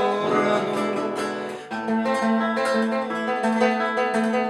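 Acoustic guitar accompaniment to a song: a singer holds the last sung word for about the first second and a half, then the guitar plays on alone with plucked and strummed notes as an outro.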